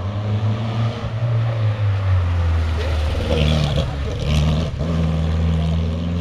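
Renault Alpine A110 rally car's rear-mounted four-cylinder engine revving hard as it accelerates through a corner. The engine note breaks off briefly nearly five seconds in, then climbs again as the car pulls away.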